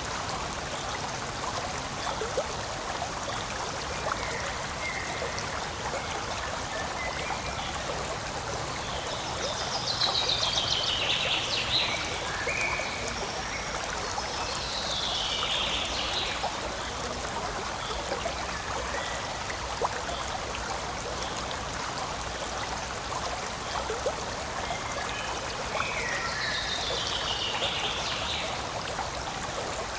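Forest stream flowing and trickling over stones, a steady rush of water. Three brief high falling chirps sound over it, about ten, fifteen and twenty-six seconds in.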